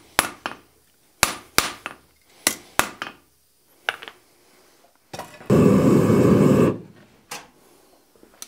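Hand hammer striking a hot half-inch round steel bar on an anvil, about eight irregular blows over four seconds. Then a loud rushing noise lasts about a second.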